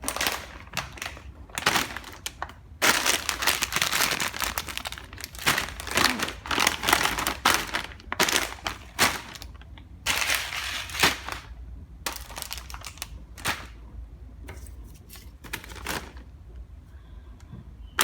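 Crunchy chips crunching and crackling in irregular bouts a second or two long with short pauses between, quieter and sparser near the end.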